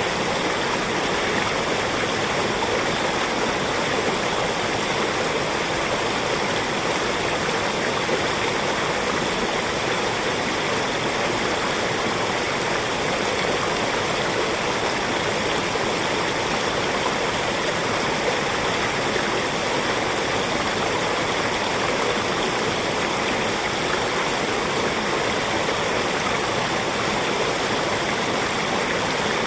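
Small forest stream rushing steadily over rocks, a constant rush of water.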